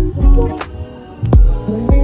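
Background music with a steady drum beat and held pitched notes.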